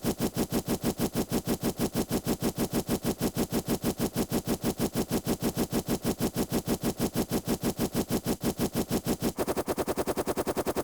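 Flip-clock flipping sound effect played very fast: a rapid, even run of clacks at about seven a second, quickening to a faster patter about nine seconds in.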